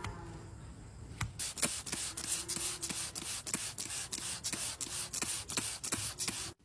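Hoof knife paring loose horn from a cow's claw wall, in quick repeated scraping strokes, several a second, starting about a second in and stopping just before the end. A calf's bawl trails off at the very start.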